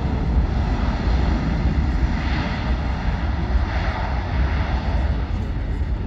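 Jet airliner's engines running, a steady, heavy rumble with the most weight in the low end.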